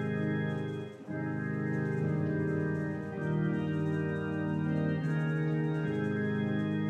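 Church organ playing the prelude in slow, sustained chords that change every second or two, with a brief dip about a second in.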